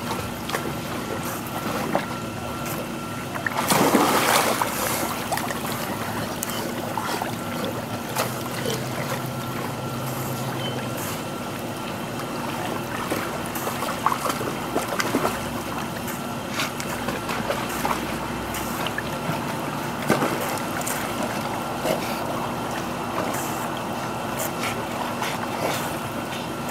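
Pool water splashing and sloshing as dogs swim and wade through it in an above-ground pool, with a louder splash about four seconds in, over a steady background hum.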